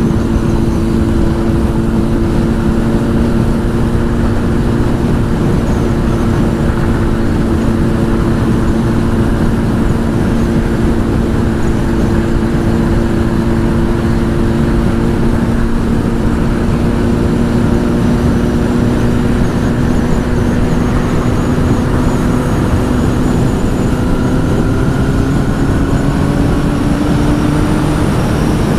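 Honda CBR1000 inline-four with a Two Brothers aftermarket exhaust, running at a steady cruising speed, its pitch holding level and then rising gradually near the end. Heavy wind rush on the helmet microphone.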